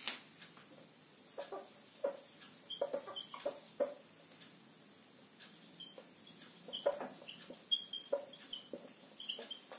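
Whiteboard marker squeaking across a whiteboard as words are written, in two runs of short strokes with a pause between them. A sharp click comes right at the start.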